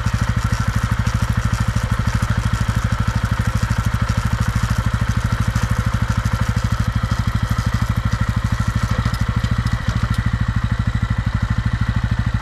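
TVS Ronin 225's single-cylinder engine running steadily in fourth gear, with the drive chain making a lot of rattling 'kar kar' noise where it runs round the front sprocket. The owner has found that this chain noise starts only from third gear upward.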